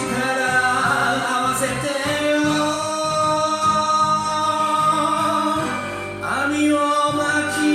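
Enka karaoke backing track playing the instrumental interlude between verses: sustained melody lines over a steady bass.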